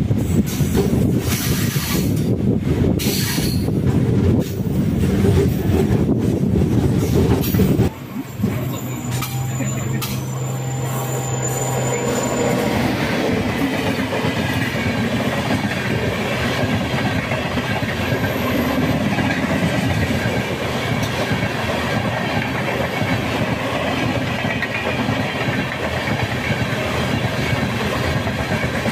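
MEMU electric train running on the track: wheels rumbling and clacking over rail joints. About eight seconds in the sound drops abruptly and settles into steadier, quieter running noise, with a low hum for a few seconds.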